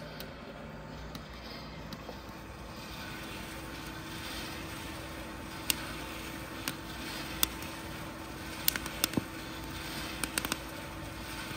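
Coffee beans crackling inside a Behmor drum roaster: sharp, scattered pops, few at first and then more frequent, over the roaster's steady running whir. This is first crack, the sign that the beans are reaching a light roast.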